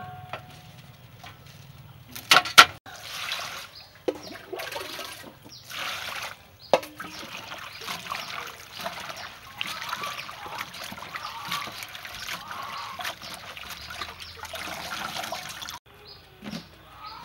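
Hands swishing and rubbing bok choy leaves in a stainless steel bowl of water, splashing in repeated bursts that stop suddenly near the end. A couple of sharp knocks come about two seconds in, the loudest sounds here.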